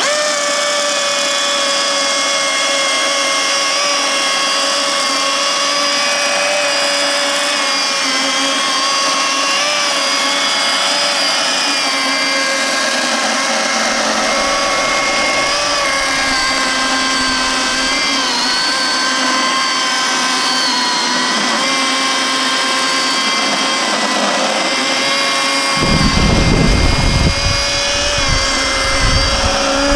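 Milwaukee M18 Fuel cordless electric chainsaw with a 16-inch bar cutting through a thick log, its motor and chain whining steadily at full speed, the pitch sagging slightly at times under load. A rougher low rumble joins in for the last few seconds.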